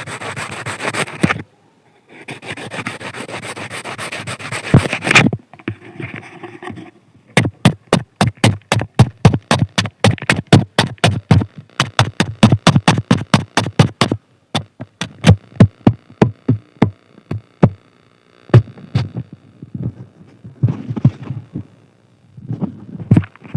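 Kitchen knife stabbing and cutting into a raw potato. There are two stretches of dense scraping in the first five seconds, then a fast run of sharp strokes, about four to five a second, from about seven to fourteen seconds in, thinning to scattered strokes after.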